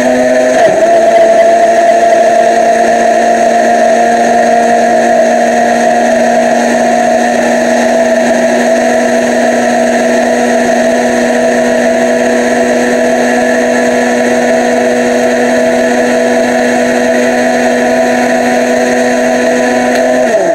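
Black+Decker countertop blender motor running steadily at speed, puréeing a jar of soft roasted tomatillos and chiles into salsa. It drops slightly in pitch about half a second in, and at the very end it is switched off and spins down with a falling pitch.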